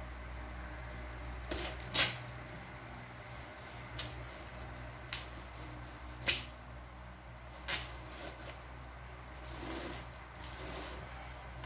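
Scissors snipping at packing tape on a cardboard box: a few sharp single snips a second or two apart, the loudest about two seconds in. Near the end comes a softer scraping and rustling of tape and cardboard under the hands.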